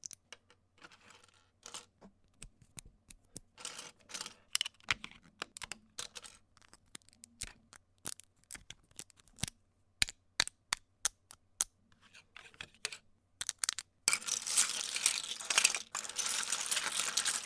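LEGO bricks clicking and clattering: a long run of separate sharp clicks, then from about fourteen seconds in a dense, continuous rattle of many bricks at once.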